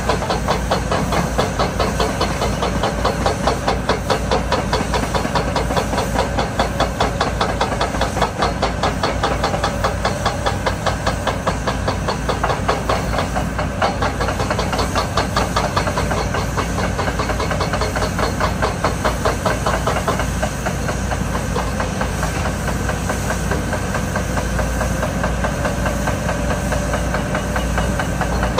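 Heavy diesel construction machinery running at a rock dig site, with a fast, steady knocking and a hiss throughout.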